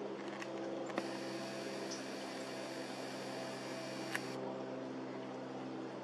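Camera zoom motor whirring for about three seconds as the lens zooms out from a close-up to a wide shot, starting and ending with a click, over a steady low electrical hum.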